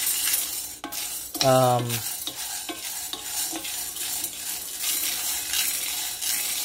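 Raw green coffee beans stirred with a metal spoon in a metal skillet on a gas stove early in a pan roast, a continuous rattling scrape of beans and spoon against the pan. A short voiced sound cuts in about a second and a half in.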